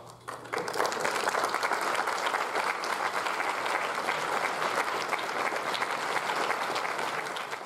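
Audience applauding: the clapping starts about half a second in, quickly swells to a steady, dense level and begins to taper off near the end.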